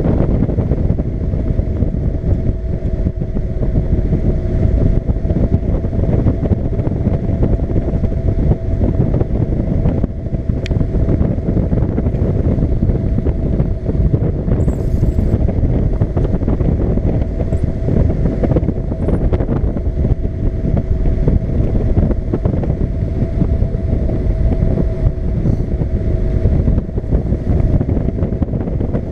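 Paramotor engine and propeller running steadily in flight, a constant engine tone mixed with heavy wind noise on the microphone.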